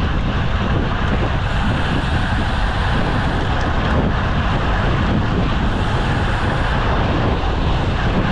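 Loud, steady wind noise rushing over the camera microphone of a road bike speeding downhill.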